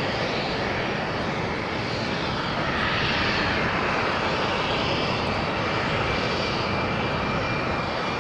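Boeing 747 freighter's four jet engines at high power as it rolls down the runway: a steady, loud rush of jet noise that swells slightly about three seconds in, with a thin high whine setting in about four seconds in.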